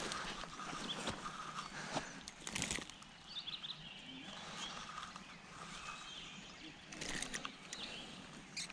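Quiet outdoor ambience with birds chirping, broken by a few close knocks and rustles of hands handling a caught bass and a fishing rod.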